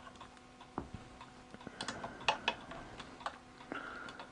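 Scattered sharp clicks and taps of camera rig parts being handled and fitted together, about half a dozen in all, bunched in the middle of the stretch.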